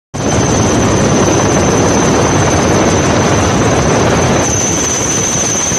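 Helicopter noise, a steady dense rushing drone with a constant high whine on top. It eases slightly about four and a half seconds in.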